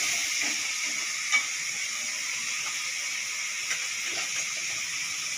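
Sliced onions frying in hot oil in an aluminium kadai, a steady sizzle, with a few sharp clicks of a metal spatula against the pan, the loudest about a second in.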